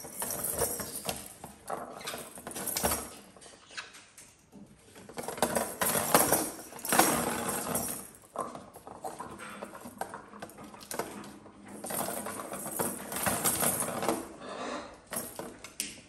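A ball rattling and rolling around a clear plastic circular track cat toy as a cat bats at it, in several bursts of quick clicks and rolling.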